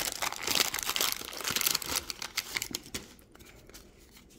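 Wax-paper wrapper of a 1987 Donruss baseball card pack being torn open and crinkled, loudest at the start and dying away after about three seconds; then faint rustling as the stack of cards is handled.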